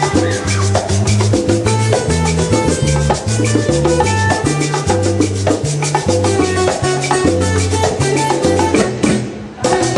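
A live Latin band playing salsa music, with a moving bass line under a steady beat. The music breaks off near the end, and one sharp hit follows.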